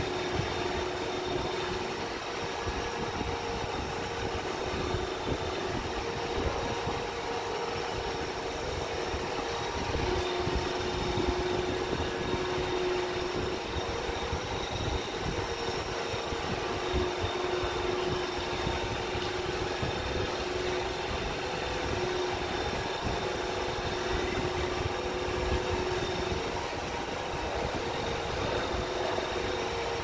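iRobot Roomba i7 robot vacuum running while sitting in place: a steady motor hum with a thin high whine above it.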